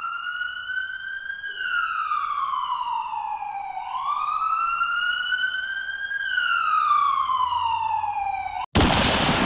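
Siren wailing in slow rising-and-falling sweeps, two full cycles, then a short, loud burst of hissing noise near the end that cuts off suddenly.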